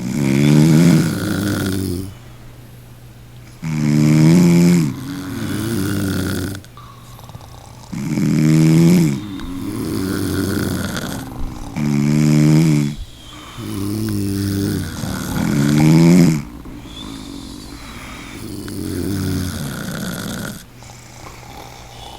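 Snoring: a series of loud snores every few seconds, each one to two seconds long, alternating with softer snoring breaths.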